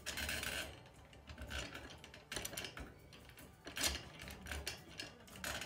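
Mame-shiba puppy giving short, rough growly yaps (gau-gau) in an irregular series of bursts, mixed with rattling of its wire crate.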